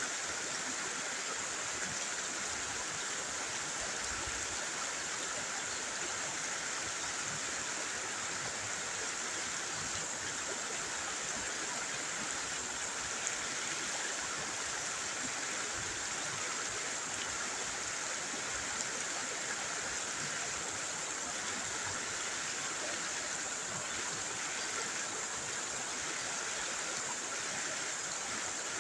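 River water rushing steadily over rocks, an even hiss with no breaks.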